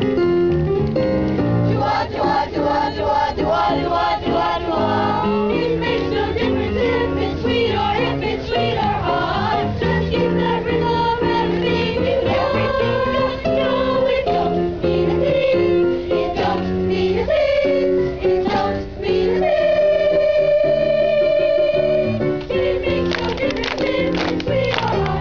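A boys' choir singing with instrumental accompaniment, holding one long note about three-quarters of the way through.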